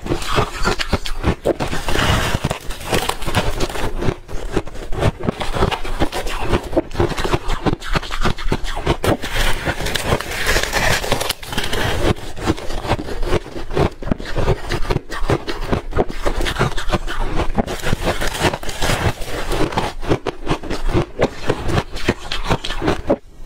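Close-miked crunching of frozen ice being bitten, a dense, irregular run of crisp crackles and cracks.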